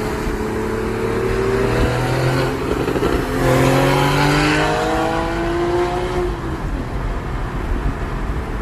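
Porsche 991.1 Carrera S's naturally aspirated 3.8-litre flat-six on its stock exhaust, accelerating. The engine note rises, drops at a gear change about three seconds in, climbs again, then fades into a steady rush after about six seconds.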